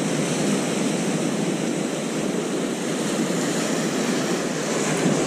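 Sea swell surging against shoreline rocks: a steady rush of surf.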